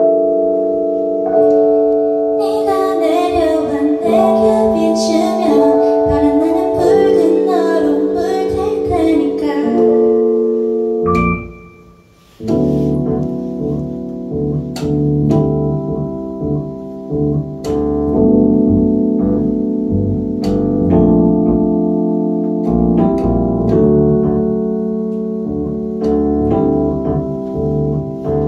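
Keyboard playing held chords that change every second or two, with a woman singing over them for the first several seconds. The music breaks off briefly about twelve seconds in, then the chords start again.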